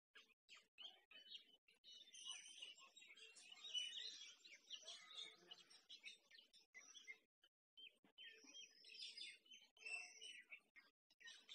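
Faint chirping and twittering of small birds, many short high calls overlapping, thickest through the middle with a brief lull about two-thirds of the way in.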